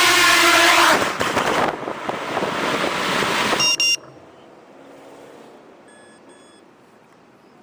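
FPV racing quadcopter's motors whining, the whine breaking off about a second in into a loud, rough rushing noise that stops abruptly after a few seconds with a brief electronic beep. Then a low background, with two short electronic beeps about six seconds in.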